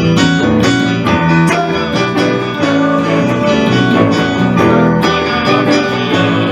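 Instrumental passage of a rock-country song between sung lines: strummed guitar over a steady beat.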